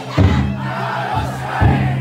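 Futon daiko float's big taiko drum beaten in slow, heavy strokes, two in this stretch, over a crowd of bearers shouting and chanting.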